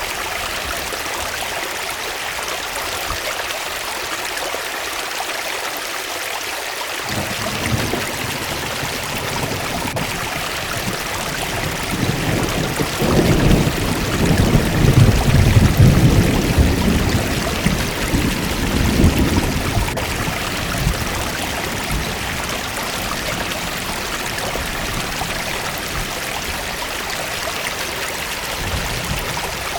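Waterfall: steady rushing of falling water. A low rumble comes in about seven seconds in, is loudest in the middle and fades out a few seconds later.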